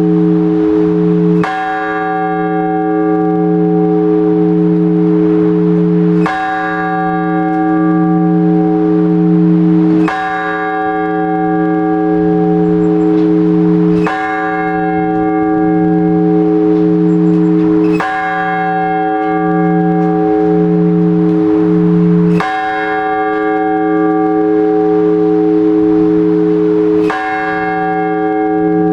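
A single large Orthodox church bell tolled slowly, seven even strokes about four to five seconds apart, each ringing on with a long hum until the next. This slow one-bell tolling is the blagovest calling to the all-night vigil.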